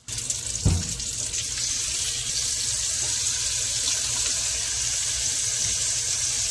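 Seasoned tilapia fillets sizzling in hot oil in a nonstick skillet, a steady frying hiss, with a low thump under a second in.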